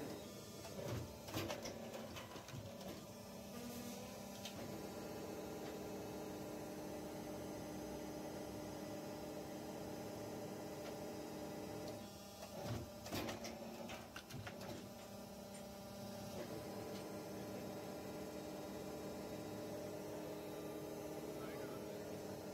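Plastic injection molding machine running with a steady hum of several tones. Short bursts of clatter come about a second in and again about twelve seconds in.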